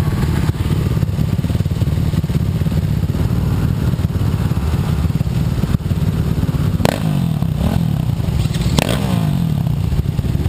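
Dirt bike engines running and revving close by, with two sharp knocks about seven and nine seconds in.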